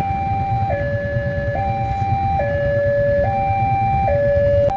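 Electronic two-tone railway level-crossing warning alarm, alternating between a higher and a lower tone, each held just under a second, over a low rumble.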